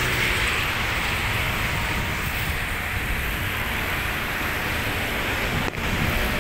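Distant jet aircraft engine noise: a steady rumble and hiss with no distinct events, briefly dipping near the end.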